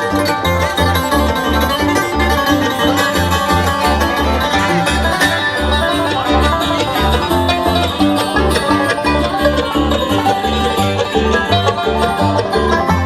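Bluegrass band playing a fast instrumental tune, with plucked strings over a steady, driving bass beat.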